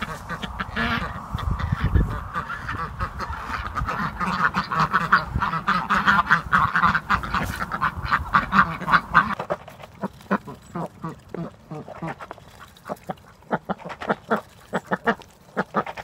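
A flock of Aylesbury ducks quacking: a dense run of quick, overlapping quacks that thins to scattered, quieter ones about nine seconds in.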